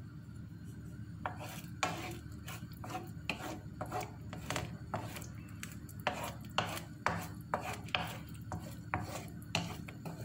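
A wooden spatula scraping and tapping the bottom of a nonstick frying pan as it pushes and breaks up egg cooking with sliced onions. The knocks come irregularly, one or two a second, over a low steady hum.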